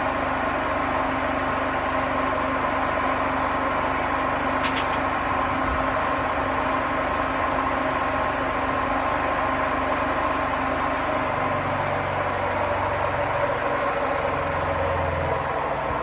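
Hotpoint Smart Tech WMFUG742 washing machine's drum spinning fast at the end of a 1400 rpm spin, running loudly and steadily with a whine over a rough noise from its bad drum bearings. A lower hum joins about twelve seconds in.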